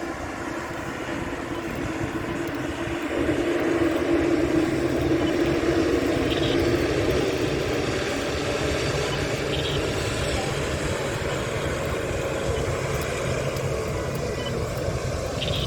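Jet airliner engines running as an aircraft moves near the runway, a continuous rumble with a hum in it. It grows louder about three seconds in and then holds steady.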